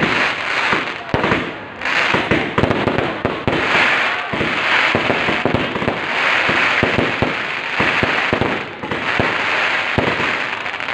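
Fireworks and firecrackers going off in a dense barrage: many sharp bangs overlapping a continuous crackling hiss that swells and fades every second or two.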